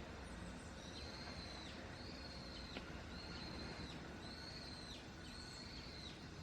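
A bird calling faintly, five long, even, high whistled notes in a row, over a steady low room hum.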